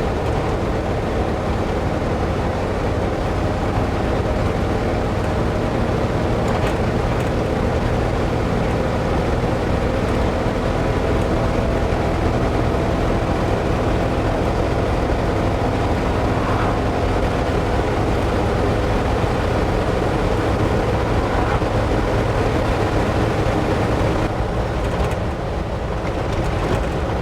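Ford F600 medium-duty truck driving along, its engine and road noise running steadily as heard from inside the cab, with a slight drop in level near the end.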